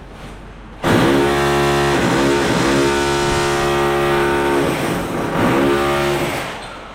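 A handheld electric power tool's motor, such as an angle grinder, switched on with a sudden start. Its whine sags and recovers several times as it bites into the work, then it is released near the end and spins down.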